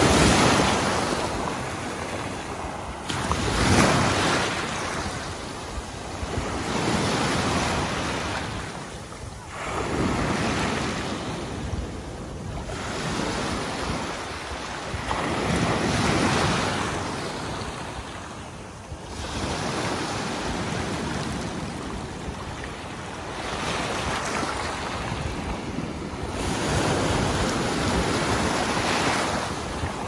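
Small sea waves breaking on a pebble beach and washing back over the stones, surging and fading every three to four seconds.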